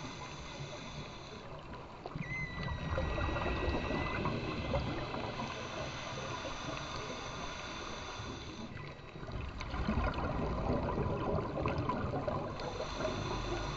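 Underwater ambience picked up by a camera in its waterproof housing: a muffled rush of water with fine crackling, swelling louder twice.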